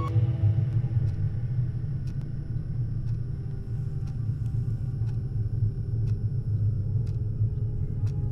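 Low, steady rumbling drone, with a few faint clicks scattered through it.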